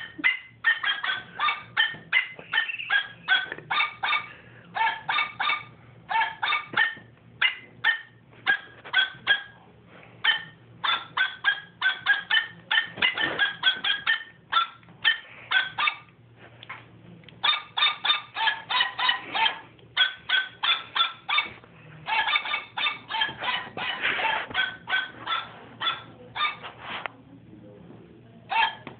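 Fast runs of short, squeaky honks at a few set pitches, several a second, played as a tune with a plush dog hand puppet.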